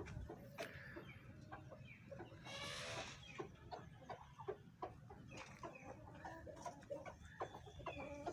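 Chickens clucking, many short calls overlapping, with one longer, harsher call between two and three seconds in.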